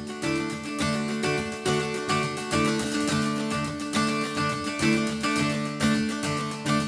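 Background music: a gentle tune on plucked acoustic guitar, with notes picked in a steady rhythm.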